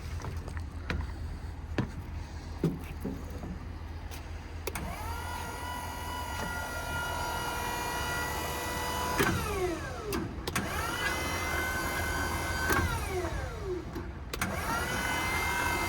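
The electric motor driving an IMT electric-over-hydraulic crane's pump, switched on and off from the remote. Three times it spins up to a steady whine, and twice it winds down with falling pitch, while the crane is moved. A few sharp clicks come before the first run.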